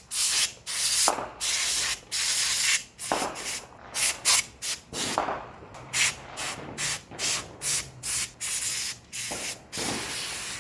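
Can of compressed air sprayed in a quick series of short and longer hissing bursts, blowing hair and dust out of a computer keyboard.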